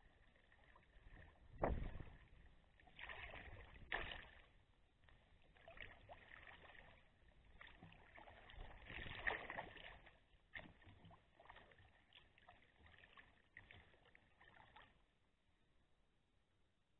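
Quiet splashes and drips of a sea kayak paddle dipping into calm water, coming at irregular intervals and stopping about fifteen seconds in.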